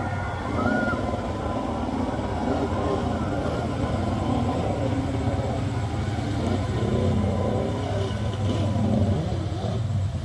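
Krash 50CAL Footrocket stand-up jet ski engine running, its pitch rising and falling unevenly as the rider works the throttle, over a steady low hum.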